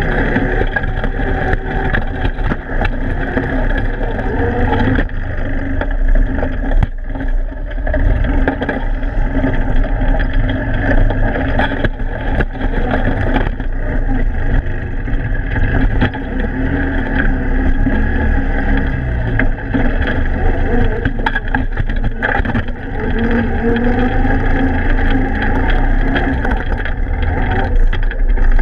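Odes 400 ATV engine running steadily as the quad pushes through broken ice and slush, with ice chunks knocking against the machine throughout.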